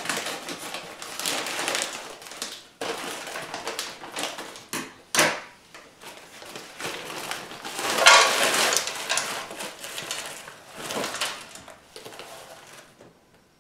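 Crinkly plastic bag of frozen stir-fry vegetables rustling and crackling as it is handled and opened, loudest about eight seconds in. Near the end the frozen vegetables are tipped out of the bag into a frying pan.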